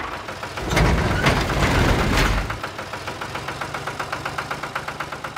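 Small engine running: louder and deeper for a couple of seconds, then settling into a steady, rapid ticking idle.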